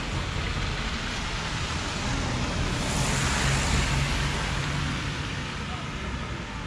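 Steady outdoor background noise, a hiss over a low rumble like passing traffic, that swells about three seconds in and eases off near the end.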